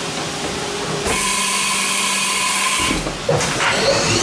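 Spindle of a 2004 Haas VF-2SS vertical machining center running at speed with a steady whine. A loud hiss joins it from about a second in until near three seconds.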